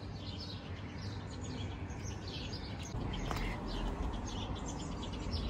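Small birds chirping in many short high notes, over a low steady rumble of outdoor background noise.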